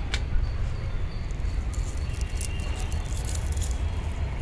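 Tomato plant leaves and its coir-rope trellis rustling and crackling as a hand reaches in to pick tomatoes, with a cluster of crackles from about two to four seconds in. A steady low rumble runs underneath.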